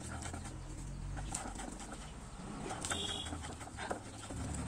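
Onions and green chillies frying in hot oil: a hissing sizzle with scattered small pops, over a low steady rumble.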